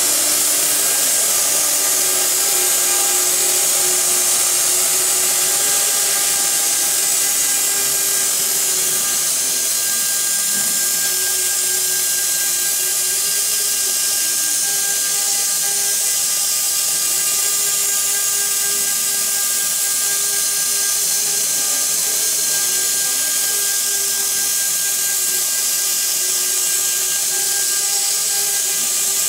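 CNC router's high-speed spindle running steadily with a high hiss and whine while a fine engraving bit carves a relief pattern into a wood panel. A lower tone wavers up and down as the cutter moves through the pattern.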